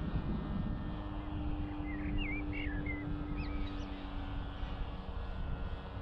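Wind rumbling on the microphone, with the steady distant drone of the Zeta FX79 flying wing's brushless motor and 12x6 propeller overhead. A bird chirps a few quick notes around two to three and a half seconds in.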